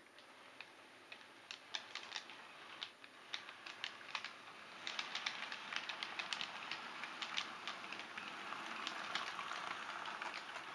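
OO gauge model train running over model track: wheels give irregular sharp clicks at rail joints and points over a steady rolling noise. The clicks come faster and the running noise grows louder as it draws near.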